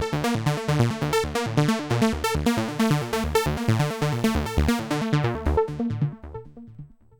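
Dave Smith Evolver synthesizer playing a fast sequenced pattern of percussive notes over a steady pitched tone, from a single patch with no external effects. About six seconds in the notes stop and the sound trails off in fading echoes.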